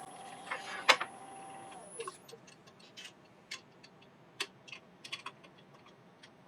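Wood lathe switched off: a sharp click about a second in, then the motor's steady whine falls away and stops about two seconds in. Scattered light clicks and taps follow.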